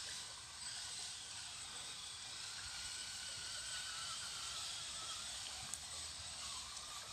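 Shallow stream running over stones, a steady hiss, with the faint wavering whine of an RC crawler's electric motor under it.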